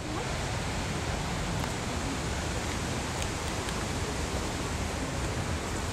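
Steady, even background noise: a hiss with a low rumble underneath, no clear events.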